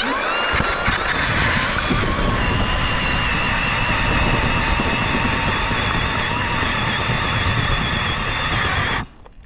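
Battery-powered electric ice auger starting up and boring a hole through the ice: a motor whine that rises in pitch as it spins up, then runs steadily over a grinding hiss, stopping abruptly about nine seconds in.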